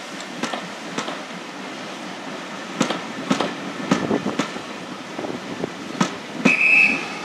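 Maroon LMS passenger coaches rolling past at low speed, their wheels clicking over the rail joints at irregular intervals. A brief high-pitched tone sounds near the end.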